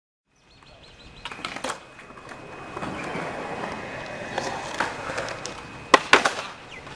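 Skateboard wheels rolling on a concrete skatepark bowl, with scattered sharp clacks of the board against the concrete and two loud ones about six seconds in.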